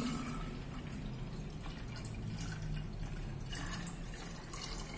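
Water pouring in a steady stream from a plastic jug into the open clear plastic tank of a pressure sprayer, filling it.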